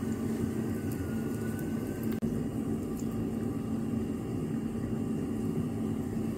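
Steady low mechanical hum with a faint high whine above it, cutting out for an instant about two seconds in.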